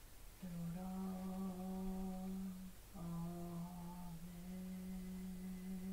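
A woman's voice humming long held chant notes. It starts about half a second in on a low note, steps up to a higher one, pauses briefly near the middle, then holds one long note that lifts slightly partway through.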